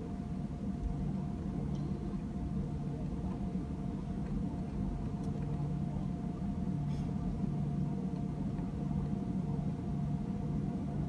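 Cabin noise of an Airbus A320 taxiing after landing: the engines run at idle with a steady low rumble and a thin, steady whine, heard from inside the cabin.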